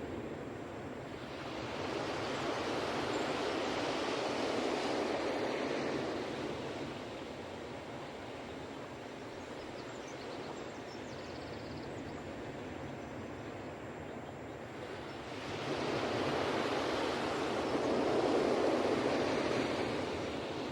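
Ocean waves breaking on a beach. Two waves swell and die away, one about two seconds in and another near the end, with a steady wash of surf between them.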